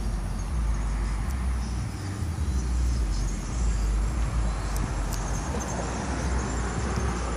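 Low, uneven outdoor rumble on a phone microphone, with no distinct hoofbeats standing out.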